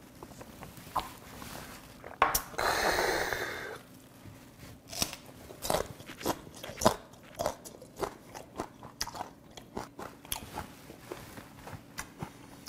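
A long breathy exhale about two seconds in, then crisp crunching as a fresh green chili pepper with raw filefish sashimi is bitten and chewed, about one or two crunches a second.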